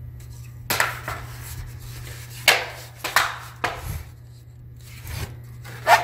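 The plastic bottom cover of a Lenovo IdeaPad 100 laptop being snapped back onto the chassis: about five sharp clicks, spread out, as its clips catch under pressing hands.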